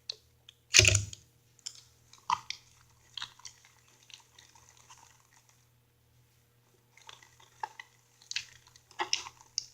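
Sticky slime of glue, shaving cream and contact lens solution being stirred in a bowl, giving irregular wet squelches and clicks, with a loud knock about a second in and a short lull past the middle.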